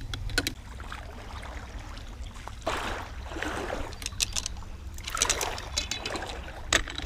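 Creek water sloshing and splashing around legs wading through the shallows, in a few short surges, with scattered clicks from handling the bow and a steady low rumble.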